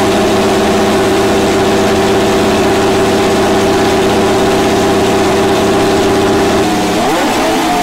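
Ferrari's 2022 Formula 1 power unit, a 1.6-litre turbocharged V6 hybrid, idling steadily at one pitch. Near the end it rises to a slightly higher idle and holds there.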